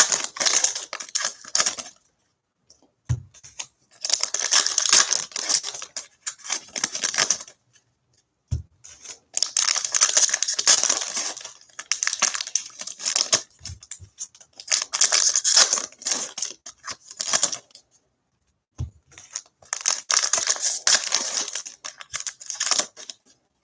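2019-20 Panini Mosaic basketball foil card packs being torn open and crinkled by hand, in about five bursts of a few seconds each. Short low knocks come in the gaps between the bursts.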